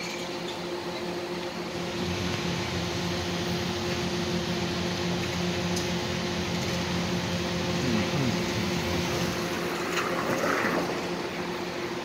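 Steady mechanical hum with two constant low tones over a background hiss. A few faint, brief sounds come between about eight and eleven seconds in.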